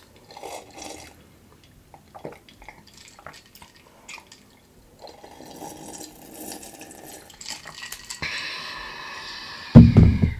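A drink being gulped and sipped from a glass, with small swallowing and liquid sounds, then a single short, loud burp near the end.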